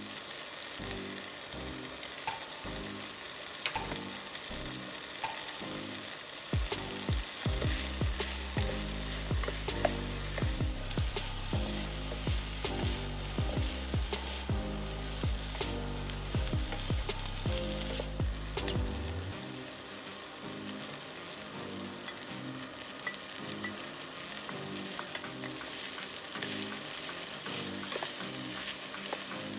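Corn kernels and chopped vegetables sizzling in a hot nonstick frying pan, stirred with a wooden spatula that scrapes and ticks against the pan. Soft background music plays underneath.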